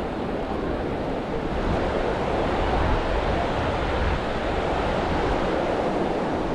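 Ocean surf washing onto a sandy beach as a steady rushing noise that swells a little after about a second and a half, with wind rumbling on the microphone.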